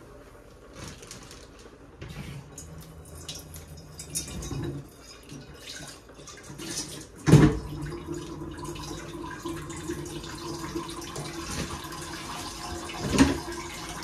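Kitchen tap running into a stainless steel sink while a metal pan is rinsed under it. The water comes on about halfway through, with a loud metal knock as it starts and another near the end, and small clatters of cookware before.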